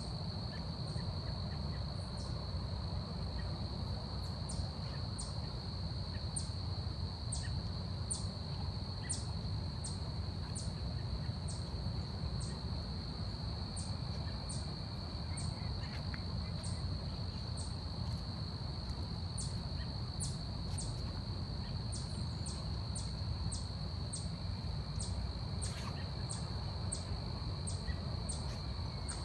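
Forest insects, crickets or similar, keeping up a steady high-pitched drone, with short sharp high chirps repeating about once or twice a second. Underneath is a steady low rumble of background noise.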